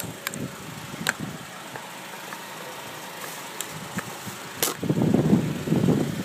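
Car being lowered after an oil change: a few sharp clicks, then a louder, rough rushing sound starting about five seconds in.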